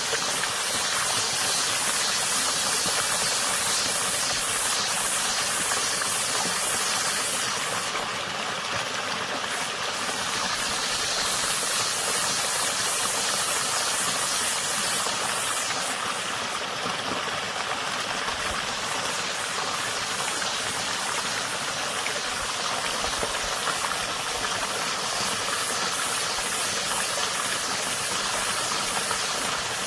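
Water running in a small stream, with a cicada's buzzing song over it; the buzz eases off briefly twice.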